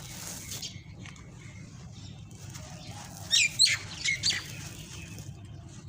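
Dry sand-cement shapes crumbling and crunching, with a quick run of four or five sharp, gritty crunches about three and a half seconds in over a faint steady grainy rustle.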